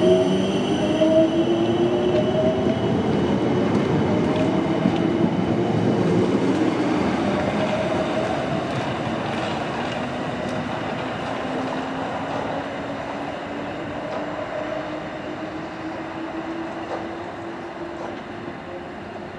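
Class 455 electric multiple unit pulling away, its traction motors whining in several tones that rise slowly in pitch as it picks up speed, over rolling wheel noise. It fades steadily as the train draws away.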